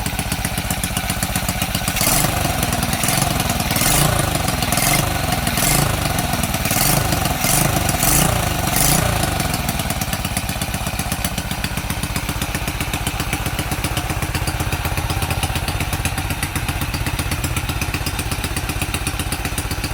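Honda XRM 110's single-cylinder four-stroke engine running on bare skeleton wiring, with just a CDI and ignition coil and no battery or voltage regulator. It surges in a string of short bursts over the first half, then settles to a steady idle.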